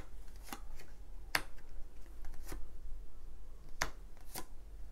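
Tarot cards being handled: about half a dozen sharp, separate card snaps and taps at irregular intervals.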